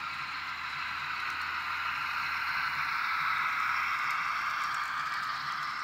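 N scale model freight train running past on the track: a steady rushing hiss of wheels rolling on the rails. It swells to its loudest a little past halfway as the cars pass close, then eases.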